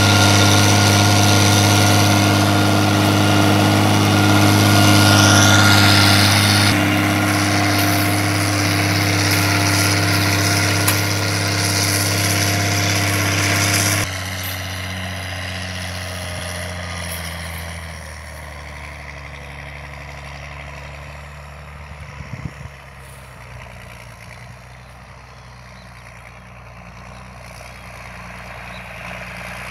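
Turbocharged Mercedes-Benz 352 six-cylinder diesel of a CBT 2600 tractor running steadily while it pulls a seven-row planter. The engine is loud and close at first, then about halfway through it suddenly becomes quieter and more distant.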